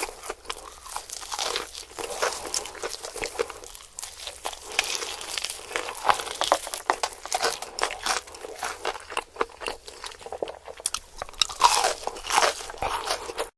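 Close-miked crunching and chewing of crispy KFC fried chicken, a dense run of irregular crackly crunches with louder bites here and there.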